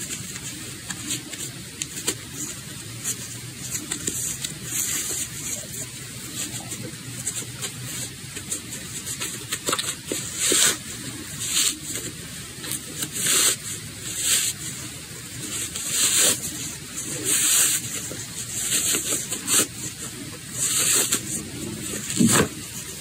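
Fabric rustling and swishing as hands bunch and slide a sewn tube of cloth, turning it right side out, in irregular soft brushes that come more often in the second half. A low thump near the end.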